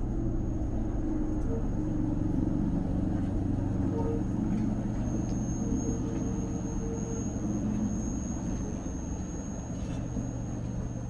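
A passenger vehicle in motion: a steady low running rumble with several held low hums, and a thin high whine that sets in about five seconds in.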